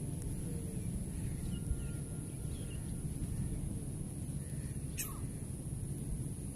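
Strong wind rumbling steadily on the microphone, with a few faint bird chirps in the first half and a single sharp click about five seconds in.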